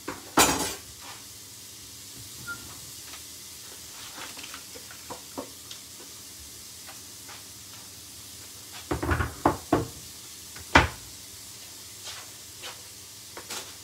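Knocks and clatter of a knife and a chopping board being handled and put down on a wooden worktop: one loud knock near the start, a cluster of knocks about two-thirds of the way through, then a single sharp knock, with scattered light clicks. Underneath, the pot of peppers and chilies sizzles faintly and steadily.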